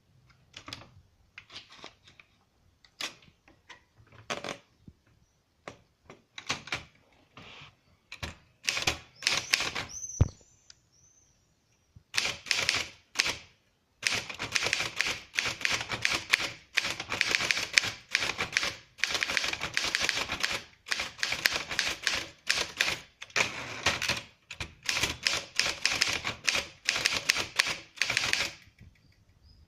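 1939 Triumph Standard 12 manual typewriter being typed on: scattered keystrokes at first, with a brief ringing tone about ten seconds in, then fast, continuous typing for about fifteen seconds that stops shortly before the end.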